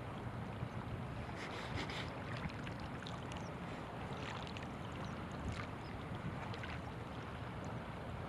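Steady wind rumbling on the microphone, with a few faint clicks scattered through it.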